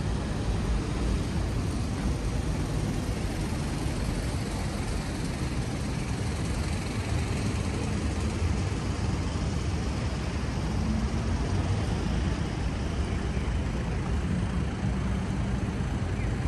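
Steady low rumble of city traffic and street noise.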